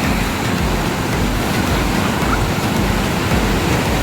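Ocean waves rushing on a beach, with wind buffeting the microphone in a steady, loud low rumble.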